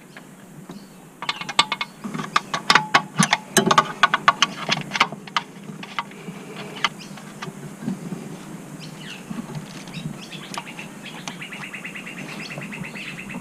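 Ratchet wrench clicking as nuts are undone from the brake booster studs. The clicks come in quick, uneven runs with knocks of the tool against metal, then near the end a fast, even run of clicks.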